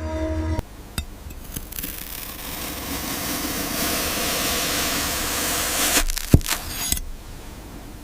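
A blade slicing slowly through a foam cube, a long airy rasping hiss that builds and holds for about four seconds, then a sharp knock just after it ends. Background music cuts off abruptly in the first second.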